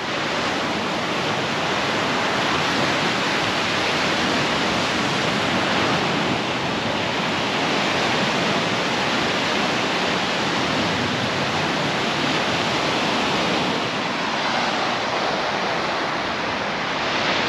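Surf breaking on a sand beach: a steady, even rush of waves.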